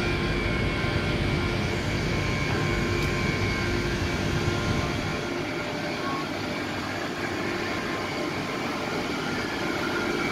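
Power-station machinery running: a steady rushing drone with a constant high whine and a lower hum over it. The deep rumble drops away about halfway through.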